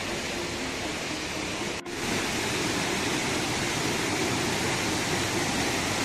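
Steady rushing of water from a rocky stream and waterfall. It drops out for an instant a little under two seconds in, then comes back slightly louder.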